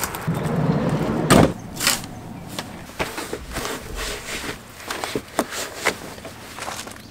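Van sliding side door rolled shut with a heavy thud about a second in, followed by a second knock. Then fabric rustling and small clicks as a cab curtain is gathered and fastened.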